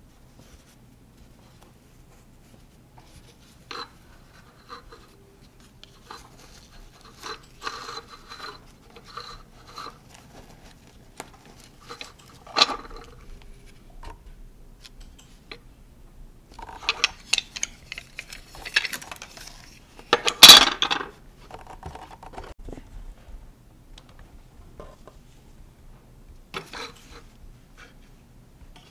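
Handling noise from a knit baby cardigan on a plastic hanger being moved about on a desk: scattered light clicks and rustles, busier in the second half, with one louder sharp knock about twenty seconds in.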